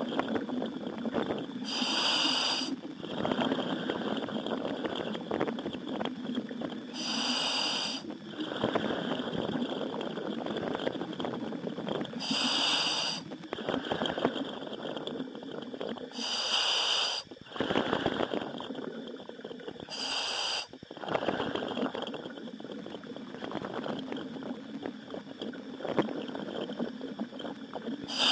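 Commercial diver breathing through a helmet demand valve, heard over the diving communication line. A short hissing inhalation comes every four to five seconds, with bubbling, crackling noise in between.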